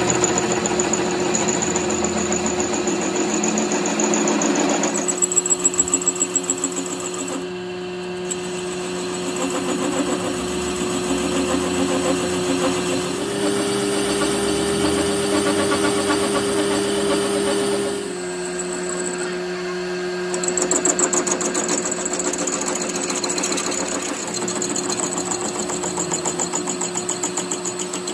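Metal lathe running with a heavy-truck engine crankshaft spinning in it: a steady motor hum with a fast rhythmic chatter as the cutting tool turns the crankshaft's broken end. The hum steps up in pitch for a few seconds in the middle, then drops back.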